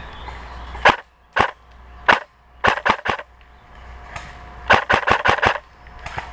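Airsoft guns firing: sharp pops, first singly, then three in quick succession, then a fast run of about six near the end.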